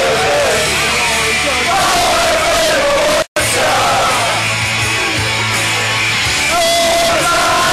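Pub crowd of Borussia Mönchengladbach fans singing and shouting a club song together, loud, cutting out for a moment about three seconds in.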